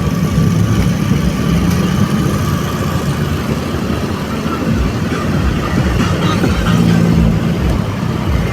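Engine and road noise of a car being driven at speed, a steady low rumble.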